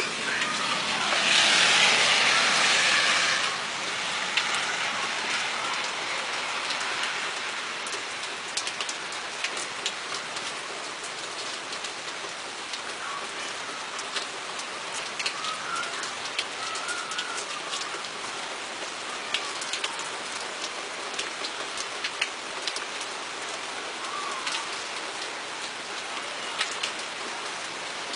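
Heavy rain falling during a thunderstorm, a steady hiss with individual drops ticking on a nearby surface. It is louder for the first few seconds, then settles to an even patter.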